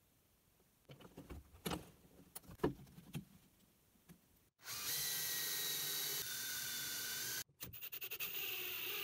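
A few knocks and clicks as the glued wooden pieces are handled and fastened with plastic spring clamps. Then a cordless drill drives wood screws into the clamped block: one steady run of about three seconds, then shorter bursts near the end.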